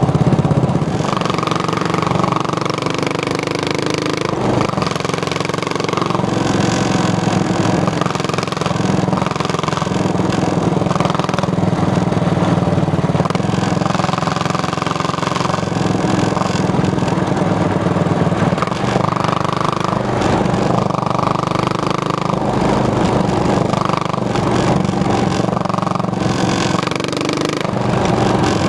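Single-cylinder Yamaha motorcycle engine and exhaust running on the move, the engine note shifting every few seconds as the throttle and revs change.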